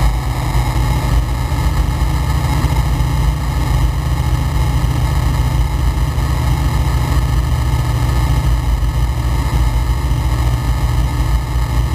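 Flight Design CTLS light aircraft's Rotax 912 flat-four engine and propeller running steadily in flight, heard inside the cockpit with a steady rush of airflow.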